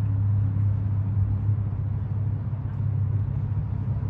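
A steady, low engine hum at an even pitch, with faint background noise.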